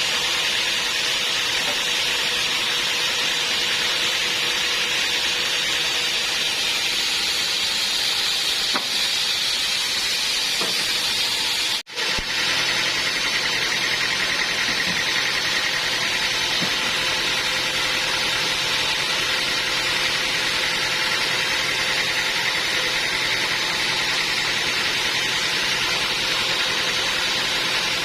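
Band sawmill running steadily, a continuous fairly high-pitched mechanical noise, with a sudden momentary break about twelve seconds in.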